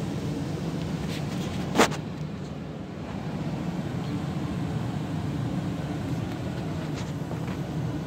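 ICP gas furnace running, a steady low rumble from its blower and burner. A sharp click stands out about two seconds in.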